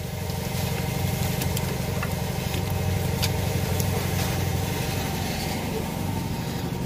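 Steady low mechanical hum, with a few light clicks as the coil pack and spark plug wire assembly is lifted off the engine.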